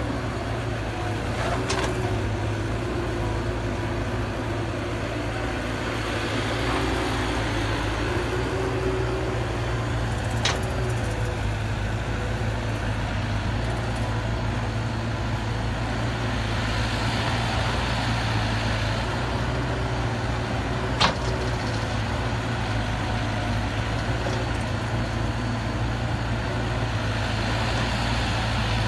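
Caterpillar 312B hydraulic excavator's diesel engine running steadily under load while digging and loading soil, its pitch rising and falling with the work. A few sharp knocks sound over it, the loudest about two-thirds of the way through.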